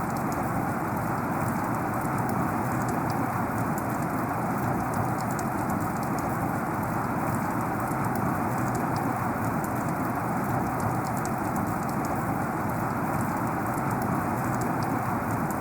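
Heavy rain falling steadily, a dense even hiss with the fine patter of individual drops.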